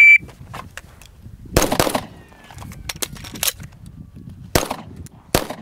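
An electronic shot timer beeps once, then a handgun fires. The first shots come about one and a half seconds in. After a pause for a magazine reload, two more shots come near the end, less than a second apart.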